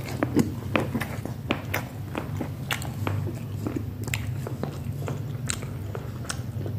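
A person chewing a mouthful of soft bread soaked in curry broth, with irregular wet mouth clicks and smacks. A steady low hum runs underneath.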